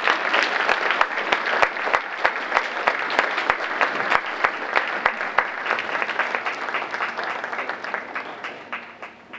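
Audience applauding, dense clapping that thins out and dies away over the last few seconds.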